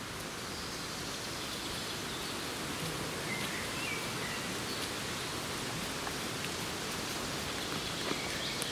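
Forest ambience: a steady, even hiss with a few faint, short bird chirps scattered through it.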